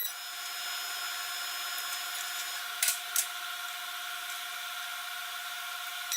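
TIG welding arc on aluminium: a steady hiss with a steady hum tone, and two sharp clicks a little under three seconds in.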